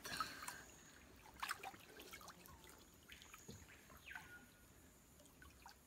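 Faint trickling and a few light splashes of shallow river water as a large peacock bass is let go from the hands and swims off.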